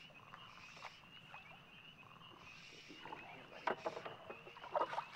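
Water splashing and knocking against a small boat as a hooked smallmouth bass is brought alongside, in two sharp clusters about two-thirds of the way in and near the end. Under it, a steady high-pitched trilling chorus of calling animals.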